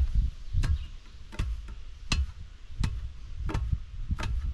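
Dirt being tamped around a freshly set log post with a long-handled tool driven down into the hole: a steady run of dull thuds, about one every 0.7 s, seven in all.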